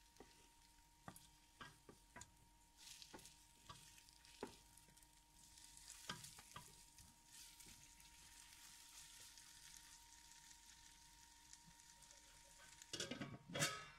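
Marinated chicken pieces frying in oil in a nonstick pan, with a faint sizzle and scattered taps and scrapes as a wooden spatula turns them. A louder clatter comes about a second before the end.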